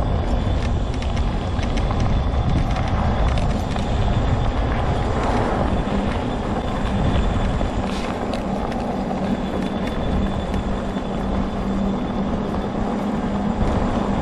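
Homemade all-wheel-drive mobility scooter running steadily along a trail, with a constant motor whine over a rumble of the ride.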